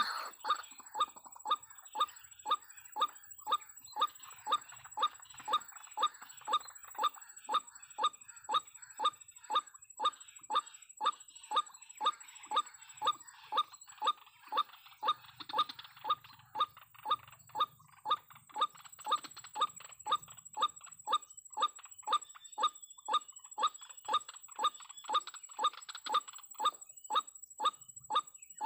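White-breasted waterhen (ruak-ruak) calling, a short call repeated over and over at an even pace of about two a second.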